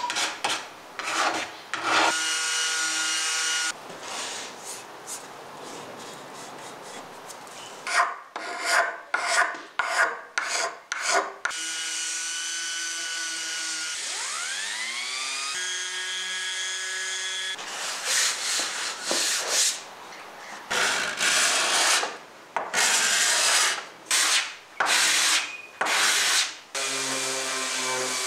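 Rough, repeated hand-tool strokes scraping across hardwood, alternating with a Ryobi random orbital sander running on a wooden tabletop to strip the old finish. About fourteen seconds in, the sander's motor spins up with a rising whine, then runs steadily.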